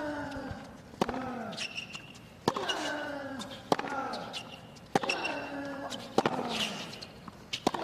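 Tennis rally: racquets strike the ball about every second and a quarter, six times in all. Each stroke is followed by a player's grunt that falls in pitch.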